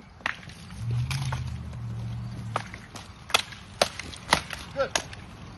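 Rattan weapons striking in SCA armoured combat sparring: sharp cracks of stick on stick and on armour, one early, then a run of about one every half second from around three seconds in. A low steady hum sounds through the first half.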